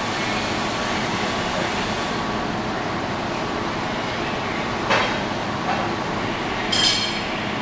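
Steady background noise of a workshop, with a single light click about five seconds in and a short higher-pitched sound near the end.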